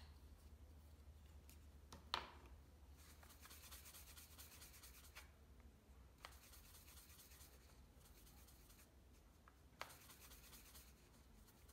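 Faint scratchy swishing of a paintbrush mixing acrylic paint on a paper palette, in two spells, with a few soft clicks.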